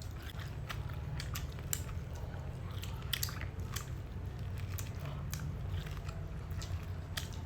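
Close-up biting and chewing of cooked sticky corn, with scattered small clicks as the kernels are bitten off, over a steady low hum.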